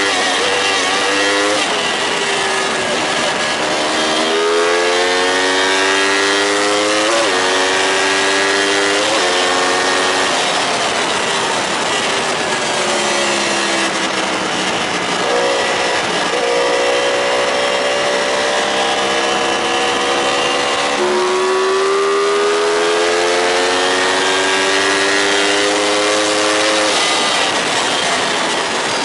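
Yamaha YZF-R1 RN22 crossplane inline-four under hard acceleration. The engine note climbs and drops back at each upshift, several times in the first ten seconds, then makes longer, slower climbs at high speed. Heavy wind rush over the helmet-mounted camera runs under it.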